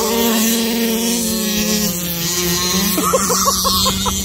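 Two-stroke petrol engines of 1/5-scale HPI Baja RC cars (5T desert truck and 5B buggy) held at high revs under full throttle after a launch, a steady high-pitched buzz that eases slightly about two seconds in.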